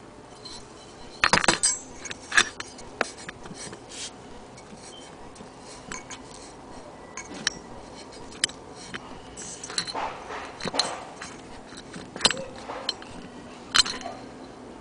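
A vintage brass Radius No 42 paraffin pressure stove clinking and knocking as it is handled and turned over. The clinks and knocks come at irregular intervals.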